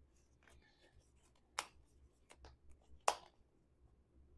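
Quiet handling of a small plastic deli container of lemon slices: light rustling and small ticks, with two sharp clicks about a second and a half apart.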